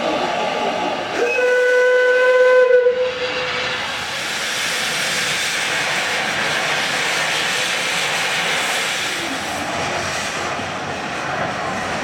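Steam whistle giving one short steady blast of about a second and a half, then a steady hiss of escaping steam.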